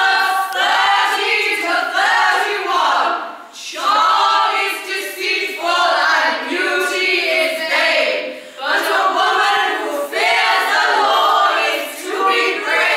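A small group of women singing together in long phrases, each lasting a few seconds with short breaks between them, fading near the end.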